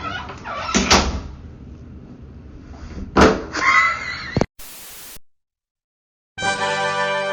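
Two loud bangs about two seconds apart, cut off suddenly, then after a short silence a burst of music with held notes near the end.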